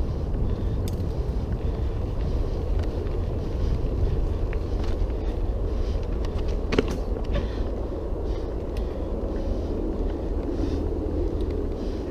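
Wind buffeting the helmet camera's microphone as a mountain bike rolls down a dirt trail, with the tyres running over dirt and rock and the bike rattling. There is scattered clicking throughout and a sharper knock about seven seconds in, as the bike crosses rocks.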